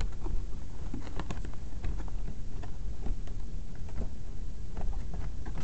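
Clear plastic toy packaging being handled, giving irregular light clicks and crackles, over a steady low rumble.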